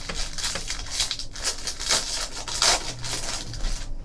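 Foil trading-card pack wrapper being torn open and crinkled, a run of scratchy rustles, loudest a little before three seconds in.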